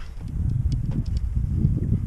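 Low, uneven rumble of wind buffeting the microphone, with a few faint sharp clicks near the middle.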